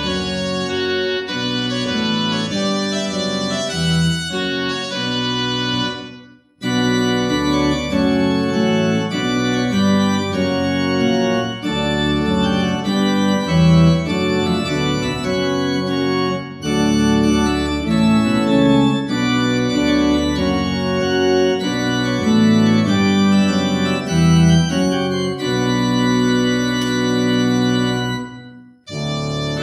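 Two-manual church organ played with held chords. The music breaks off briefly about six seconds in and again just before the end, then starts again.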